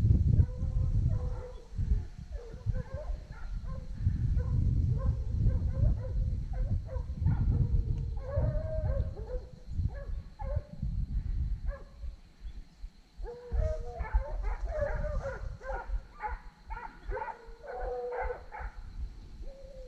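A pack of hunting dogs barking and baying on the trail of wild boar. The barks are scattered at first and come fast and crowded together from about two-thirds of the way in. A heavy low rumble on the microphone covers the first half and dies away about twelve seconds in.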